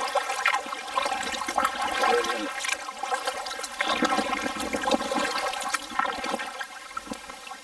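Kayak paddle strokes in calm water: the paddle blades splashing in and water dripping and trickling off them in uneven surges about once a second, easing off near the end.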